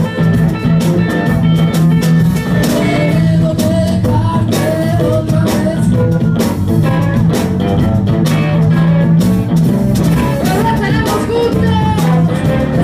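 Live blues-rock band playing, with electric guitars and a woman singing into a microphone.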